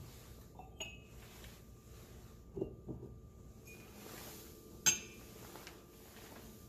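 Ceramic mugs clinking and knocking as they are lifted off a cabinet shelf and set down, a handful of separate clinks with the loudest about five seconds in.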